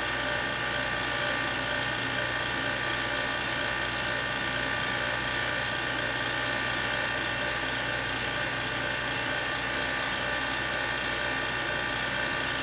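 Steady high-pitched electrical whine over a low hum from the high-voltage supply running an argon glow discharge in a glass-bottle vacuum chamber.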